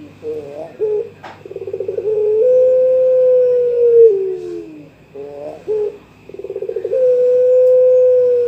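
Young Barbary dove (puter pelung) cooing its challenge call to a rival. The call comes twice, each phrase opening with a few short notes and a quick rolling trill, then one long held coo that drops in pitch at the end.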